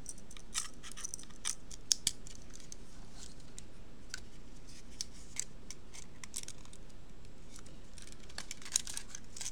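Small, irregular clicks and scrapes of DB9 serial connectors being handled and pushed together, with two sharper clicks about two seconds in and another near the end.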